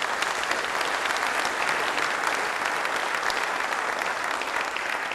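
Audience applauding, a dense patter of many hands clapping that holds steady and begins to fade near the end.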